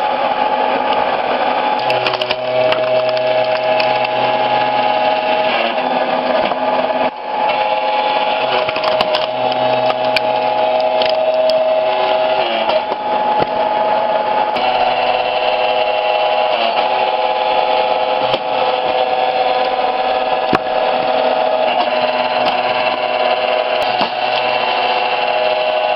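A wood-processing machine's motor running steadily with a whine, its pitch shifting a little every few seconds as the load changes, with an occasional sharp click.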